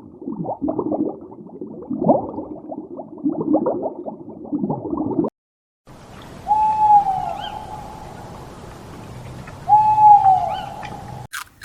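Low, rough animal sounds, then after a brief cut two separate hooting calls about three seconds apart. Each call is held on one pitch and falls away at the end, over a steady background hiss.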